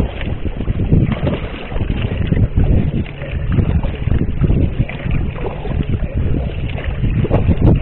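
Sea kayak being paddled across flat water, the paddle blades dipping and splashing, under a loud, uneven rumble of wind on the microphone.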